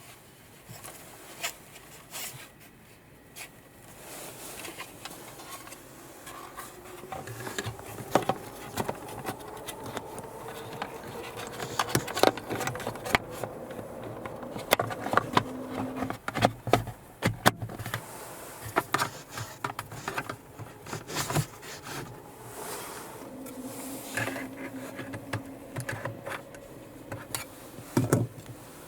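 Plastic trim cover being handled and pressed into place in a car's overhead console: a long run of irregular clicks, snaps and knocks of plastic, some sharp and loud. Under them a faint hum rises slowly in pitch.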